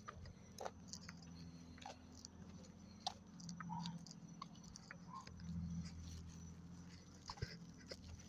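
A pet crunching dry food: faint, irregular crunches and clicks.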